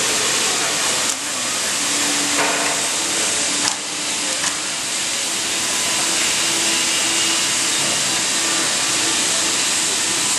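Vertical hydraulic riveting machine running with a steady, loud hiss, broken by a few short clicks in the first half.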